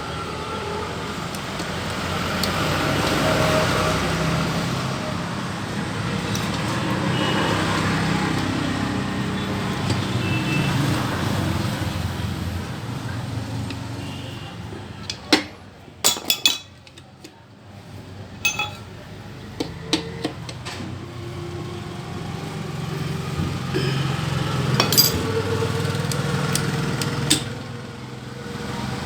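Metal tools and engine parts clinking during motorcycle engine repair work, in scattered sharp clicks over a steady low rumble.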